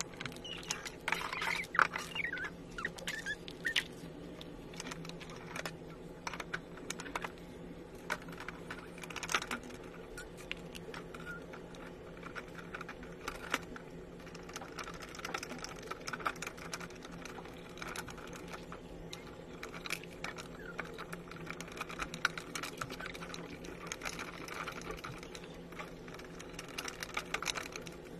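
Irregular small clicks, taps and knocks as wooden toy-kitchen panels and parts are handled and fitted together by hand during assembly, over a faint steady hum.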